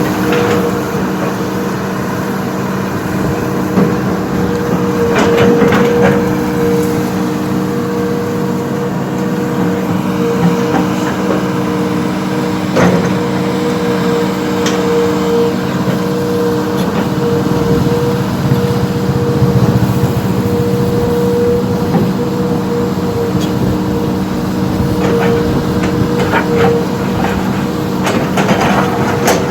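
Diesel engine of a heavy earthmoving machine running steadily with a constant hum, with a few clanks and knocks scattered through, the sharpest about 13 seconds in.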